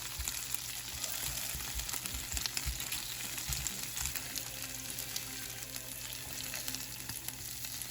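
Food sizzling and crackling in a frying pan, with scattered soft low knocks from stirring.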